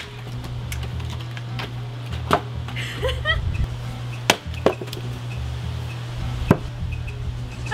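Axe splitting firewood rounds on a chopping block: several sharp chops of the blade into the wood, a second or two apart.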